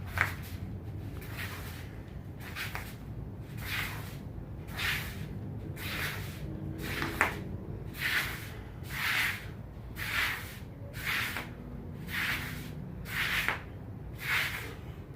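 Rhythmic scuffing strokes from someone exercising, a little more than one a second and each short and hissy, over a low room rumble.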